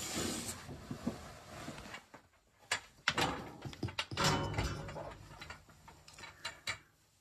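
Clothing rustling, then irregular knocks, clicks and scrapes of a person climbing down narrow wooden steps through a crawl-space hatch, with one longer, louder scrape about four seconds in.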